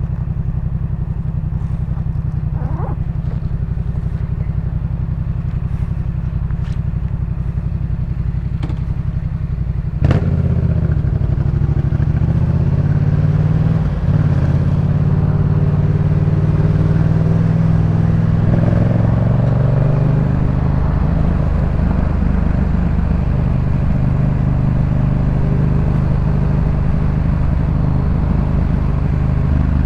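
Yamaha MT-07's 689 cc parallel-twin engine through a Jeskap K4 full aftermarket exhaust, running at steady low revs. About ten seconds in, the throttle opens sharply and the engine gets louder. Its pitch climbs gradually, breaks briefly around a gear change, then holds a steady cruising note.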